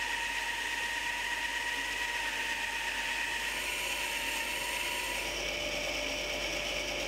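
Shop-built bandsaw running steadily as its blade rips lengthwise through a small log, an even machine noise with a steady whine. Its tone shifts about five seconds in.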